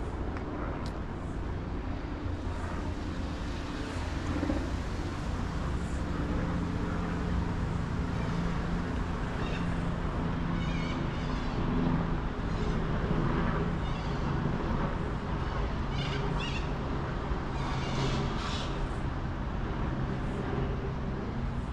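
City road traffic: a steady hum of vehicle engines and tyres. From about ten seconds in, birds chirp in short repeated calls several times.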